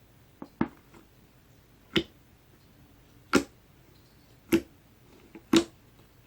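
Clear glitter slime being pressed and squeezed by hand, giving short, sharp pops about once a second as air pockets in it burst.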